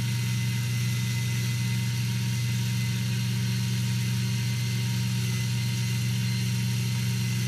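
Canon Sure Shot 80 Tele DATE 35mm compact camera's built-in motor rewinding the film into the cartridge after the last frame of the roll, a steady whir.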